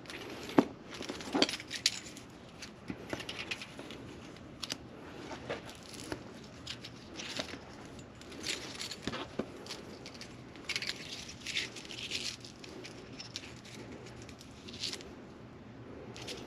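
Feeler gauge set being handled and leafed through to pick out a blade: irregular light clicks and scraping, with a few sharper clicks in the first two seconds.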